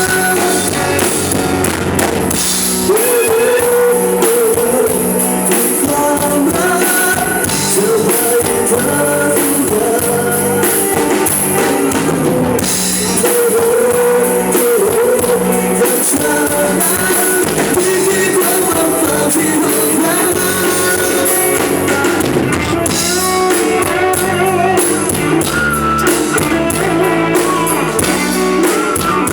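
Live rock band playing a song: drum kit, electric guitar and bass, with a wavering melody line carried over them.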